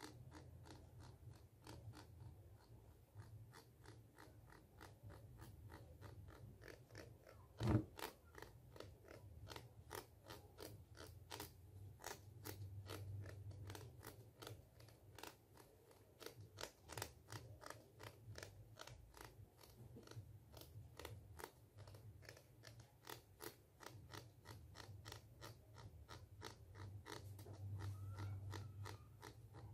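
Plastic comb's teeth scratched and flicked with the thumb close to a microphone: a long run of faint, dry clicks, several a second, with one louder knock about eight seconds in. A steady low hum runs underneath.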